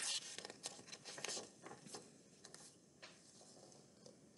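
A picture book's paper page being turned: a rustle with a few short crinkles over the first two seconds.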